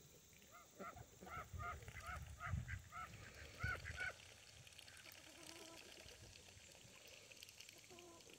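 Barnyard fowl giving a quick run of about nine short calls, each rising and falling in pitch, over about three and a half seconds; they stop about four seconds in.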